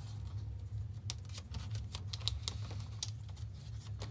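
Scattered light taps and crinkles of paper stickers being set down and pressed by hand onto the sticky side of a sheet of clear packing tape, over a steady low hum.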